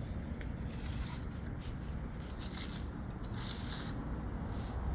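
A few short scraping strokes over a steady low rumble.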